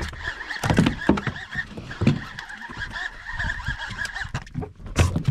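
Baitcasting reel being cranked while fighting a hooked fish: a steady, slightly wavering gear whir that stops about four seconds in, with several low thumps.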